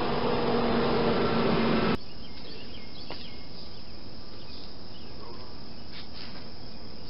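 Outdoor background with scattered short high chirps. Before that, a steady low hum cuts off abruptly about two seconds in.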